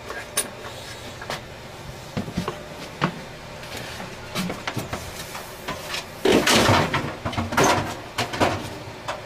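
Handling sounds: scattered knocks and footfalls on wooden porch boards as a large cardboard solar-panel shipping box is handled, with a louder rustling, scuffing stretch about six seconds in and another shorter one near eight seconds.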